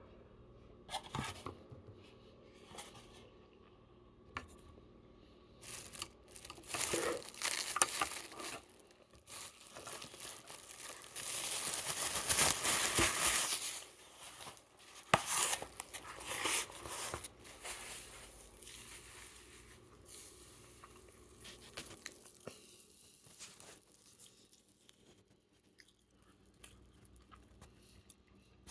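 Flatbread being torn and handled: intermittent tearing and crinkling rustles, the longest and loudest about eleven to fourteen seconds in, with quieter scattered rustles and taps around it.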